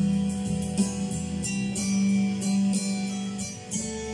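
Instrumental backing music of a Chinese pop song, with no singing. A strong low note is held under recurring beat strokes.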